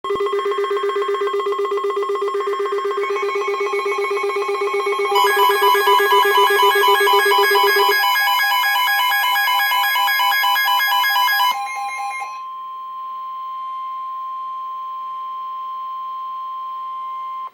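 Emergency alert tones: several electronic tones beep and pulse together in a fast repeating pattern for about twelve seconds, growing denser about five seconds in. Then a single steady alarm tone holds for about five seconds and cuts off suddenly.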